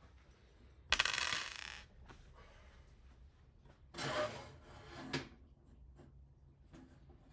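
Small hard parts being handled: a sharp metallic clatter about a second in, like hardware dropped or tipped out, then more clattering and clicking from about four to five seconds in.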